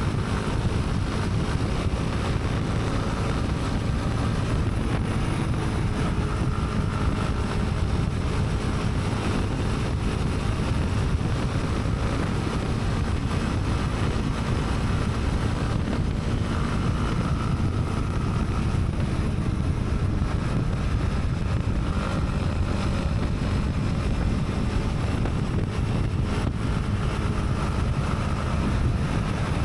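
Honda CB300R's single-cylinder engine running steadily on the move, with wind buffeting the helmet-mounted microphone.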